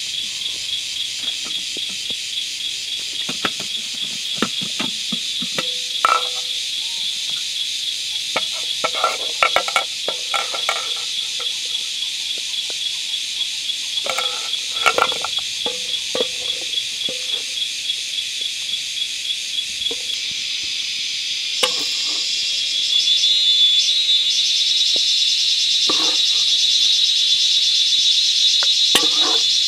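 Insects chirring steadily in a high, fine-pulsed chorus that grows louder about three-quarters of the way through. Over it come scattered knocks and clinks of a ladle against a metal cooking pot.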